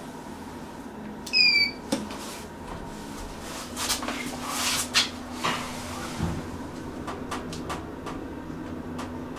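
Inside a subway-station elevator going down: a short electronic beep about a second in, then several clicks and clunks from the car and doors, and a low steady hum as the car travels.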